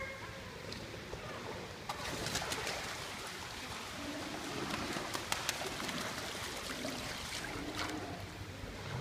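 Pool water splashing and lapping, with many sharp splashes from about two seconds in. A few short, low cooing calls sound around the middle and again near the end.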